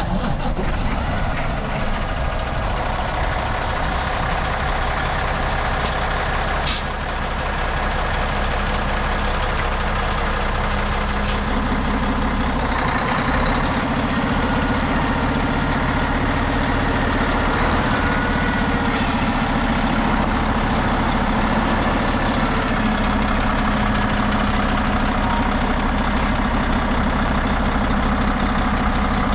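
Diesel engine of a 2021 International LoneStar truck tractor idling steadily. A higher steady hum joins a little before halfway, and there are two short hisses, about seven and nineteen seconds in.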